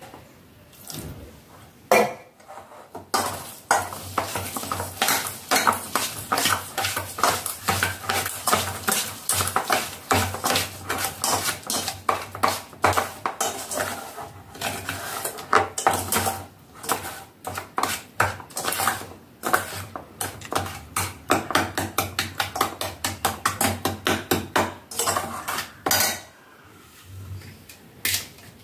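Metal spoon stirring briskly in a small stainless steel saucepan, clinking rapidly and steadily against the sides while custard powder and sugar are dissolved in water. A single clank comes about two seconds in, and the stirring stops shortly before the end.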